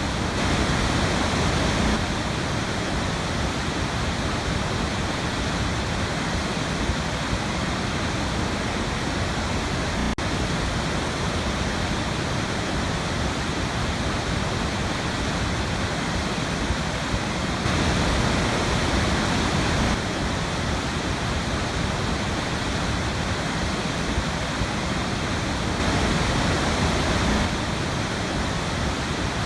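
Steady rushing of a small waterfall in a river, water pouring over a drop without a break. It swells a little louder for a couple of seconds three times.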